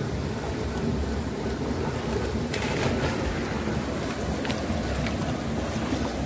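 Steady rush of a river and small waterfall, with wind buffeting the microphone and a few short splashes from swimmers about halfway through.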